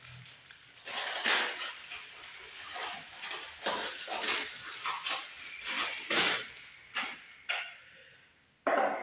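A small clear plastic parts bag crinkling and rustling in irregular bursts as it is pulled open and handled, with a sharp snap near the end.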